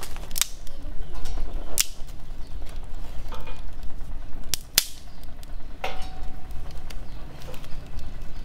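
Sticks of firewood being pushed into a wood-fired stove under a metal pot: several sharp knocks and clicks of wood against metal, one clink ringing briefly about six seconds in, over a steady low rumble.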